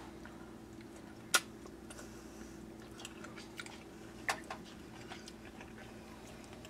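A metal fork clinks sharply against a stainless steel pot of fettuccine about a second and a half in, then twice more close together near two-thirds of the way through as noodles are lifted out to taste, with a few small soft clicks in between. A steady low hum runs underneath.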